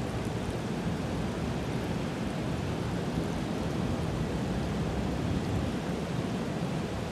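Strong wind and rain: a steady rushing noise, heaviest at the low end.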